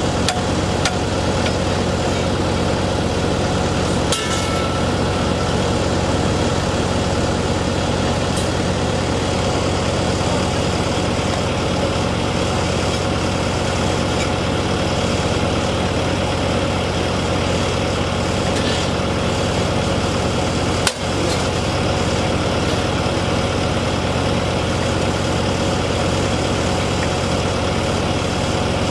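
An engine idling steadily, a constant low hum, with a couple of faint knocks about four seconds in and again past the twenty-second mark.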